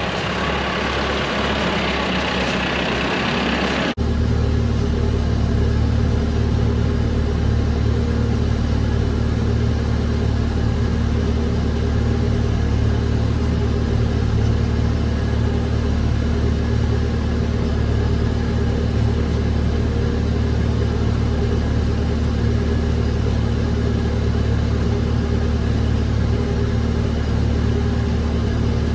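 Tractor engine running steadily at an even speed. For the first four seconds a rushing hiss lies over it, then cuts off suddenly.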